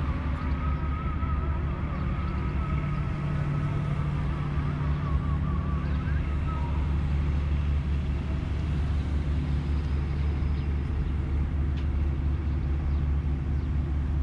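A steady low engine rumble with a constant deep hum. For the first several seconds a faint wavering high tone rides over it.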